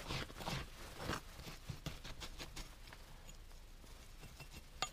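Digging and scraping in loose, sandy soil to uncover a metal-detector find: a few rough scrapes in the first second, then softer rustling and scattered small clicks, with one sharp click just before the end.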